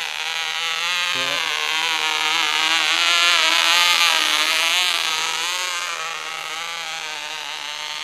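OK Cub .049 two-stroke glow engine buzzing in a model glider flying past, its pitch wavering; loudest as it passes close about four seconds in, then fading as it flies away. The pilots call it a gummed-up motor.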